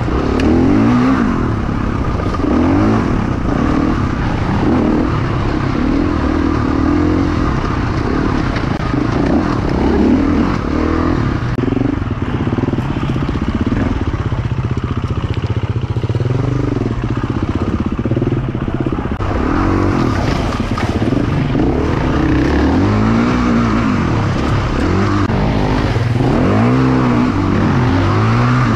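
Off-road motorcycle (dirt bike) engine running hard, its pitch rising and falling again and again as the throttle is opened and closed on a twisty trail.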